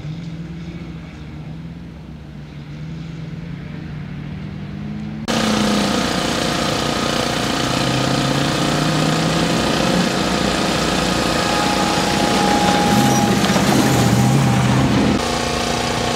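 Engines of off-road competition vehicles running on a dirt track. About five seconds in, the sound jumps abruptly louder, to a dense hiss with steady engine tones in it.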